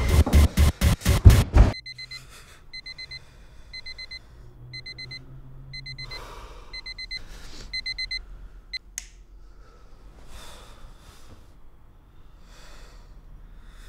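Digital alarm clock beeping in short quick runs of beeps, about one run a second, stopping about eight seconds in, with a few soft breaths around it. It is preceded by a rapid run of loud pulses that cuts off abruptly just under two seconds in.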